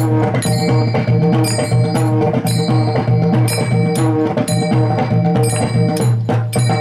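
Pakhawaj barrel drum playing a steady Warkari bhajan rhythm, with small metal hand cymbals ringing about twice a second over sustained held tones.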